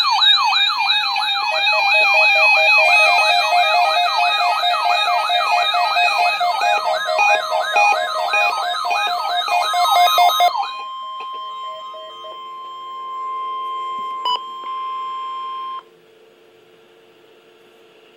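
Emergency alert signal for a weather radio test: a warbling, siren-like alarm whose tones sweep up and down about three times a second for about ten seconds. It then switches to a steady single warning alarm tone, which cuts off abruptly about five seconds later, leaving a faint hum.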